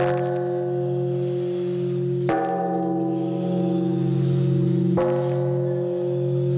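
A large hanging temple bell struck with a swung wooden log, three strikes about two and a half seconds apart. Each strike rings on in a low hum with several higher tones that die away slowly, still sounding when the next strike lands.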